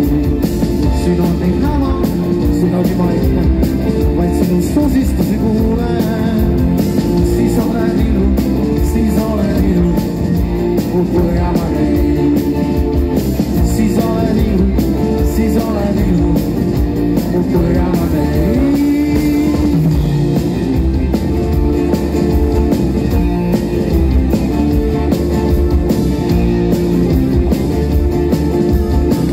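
Live rock band playing on acoustic guitars and keyboard over drums, the music holding a steady level throughout.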